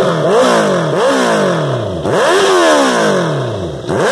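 Honda CBR650F inline-four engine revved through a Black Widow 200 mm oval, de-cat aftermarket exhaust with the baffle (dB killer) in. Three quick throttle blips, each rising sharply and dropping back toward idle, the third held a little longer, with a fourth starting at the very end.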